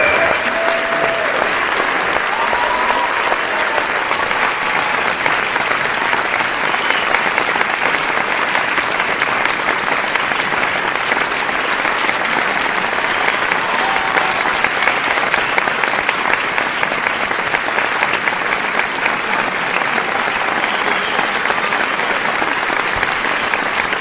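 A large crowd applauding with dense, continuous clapping at an even level, with a few voices faintly audible in it.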